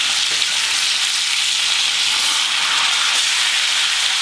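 A steak frying in bubbling melted butter with garlic and rosemary in a cast-iron skillet: a steady, loud sizzle.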